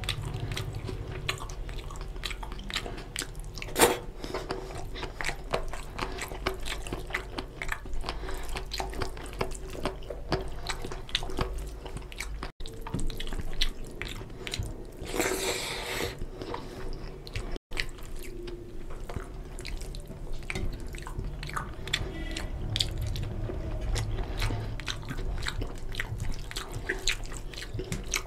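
Close-miked wet squelching and rapid clicking of fingers mixing basmati rice into oily mutton curry on a steel plate, with chewing sounds.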